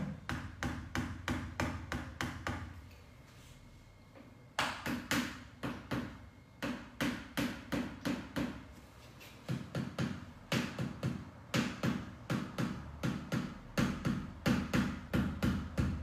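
Steady rhythmic tapping, about three sharp strikes a second, stopping for about two seconds near the start and then running on without a break.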